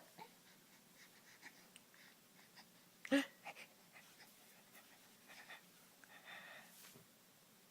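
A baby breathing quietly and making small sounds, with one short coo about three seconds in.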